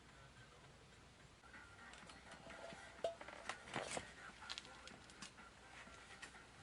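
Faint scattered clicks, taps and rustling, like small objects or gear being handled. The sharpest is a single click about three seconds in.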